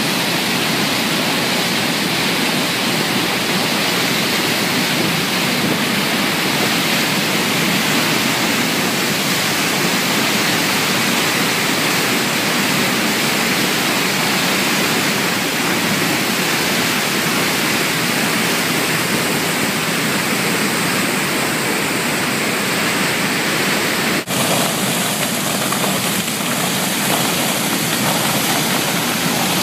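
Floodwater pouring over the fish-belly flap gates of a concrete dam and falling into the churning river below: a loud, steady rush of water, broken once by a brief click about two-thirds of the way through.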